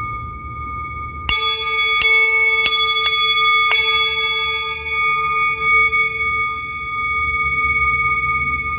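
Singing bowl ringing with steady sustained tones, while a bell-like instrument is struck five times in quick succession, each strike ringing out and fading slowly.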